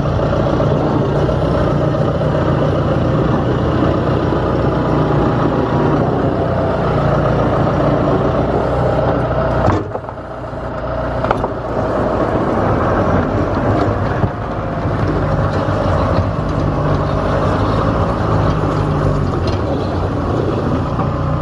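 John Deere tractor's diesel engine running steadily while it works a rear-mounted snowblower, with a brief dip in level about ten seconds in.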